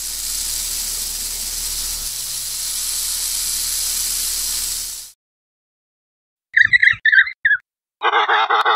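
Rattlesnake shaking its rattle: a steady dry buzz for about five seconds that cuts off suddenly. After a short silence come a few brief chirps, then, near the end, a loud braying call in rapid pulses, a penguin's call.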